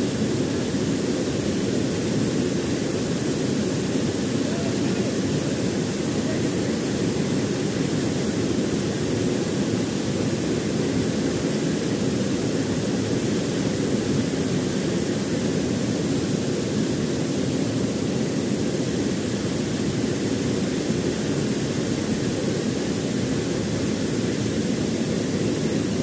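Steady rush of a waterfall pouring into its pool.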